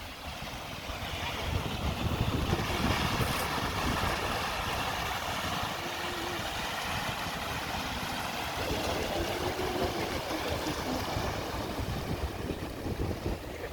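Ocean surf washing in, a steady rush that swells about two seconds in, with wind rumbling on the microphone.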